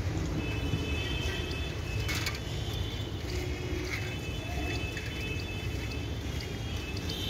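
Train receding into the distance after passing: a steady low rumble, with faint high tones on and off and a sharp click about two seconds in.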